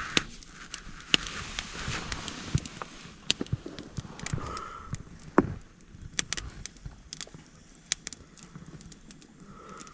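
Scattered crackles and sharp clicks over a soft hiss, from a campfire and the cooking on it.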